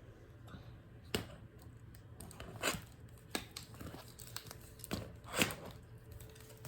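Scattered clicks and brief rustling as the plastic fingers of a 3D-printed claw hand open and close around socks and grab them, the loudest rustle about five seconds in.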